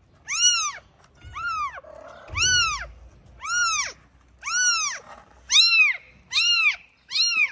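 A very young kitten mewing over and over, about eight high-pitched cries roughly a second apart, each rising and then falling in pitch.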